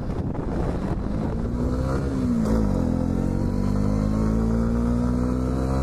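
Honda CB125R's single-cylinder engine accelerating, revs climbing, dropping sharply with an upshift about two and a half seconds in, then climbing again.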